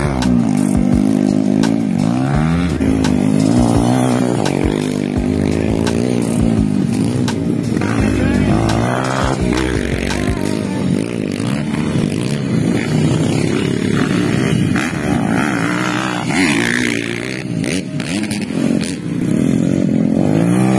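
Dirt bike engines revving up and dropping back over and over as the bikes ride a motocross track, the pitch rising and falling every second or two.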